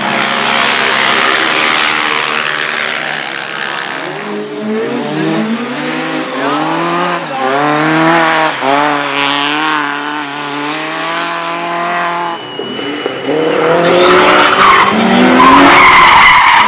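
Race car engine revving hard, its pitch climbing and falling again several times in quick succession, with the hiss of tyres sliding on the loose track. The hiss is heaviest at the start and near the end.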